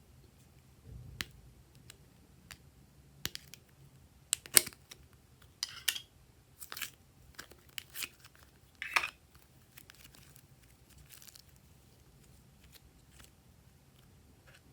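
Glossy slime being handled and mixed by hand, giving irregular sticky clicks, pops and crackles that come thickest in the first two-thirds and thin out to faint ticks near the end.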